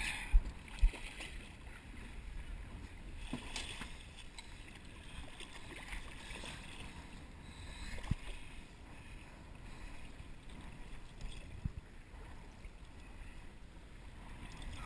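Water lapping against a small boat's hull, with wind on the microphone. A couple of sharp knocks sound in the first second, and a few faint clicks follow.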